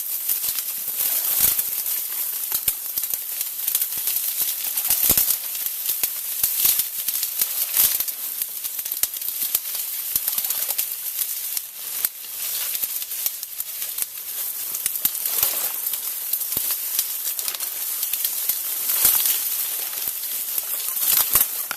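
Hiking footsteps crunching and rustling irregularly over the ground and brush, over a steady high hiss.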